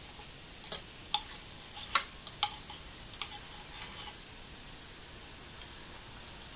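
Steel knife and fork clinking and scraping against a ceramic plate while cutting a bacon-wrapped potato: a run of sharp, briefly ringing clicks over the first few seconds, then only a steady faint hiss.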